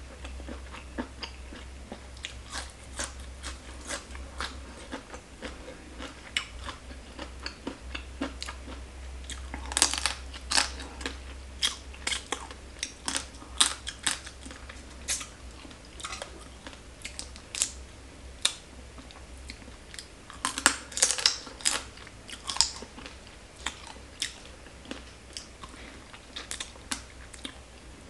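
Close-miked chewing and crunching as a person eats Thai papaya salad with pickled crab, biting into the crab shell piece by piece. Sharp crunches come throughout, loudest in thick clusters about ten seconds in and again about twenty-one seconds in.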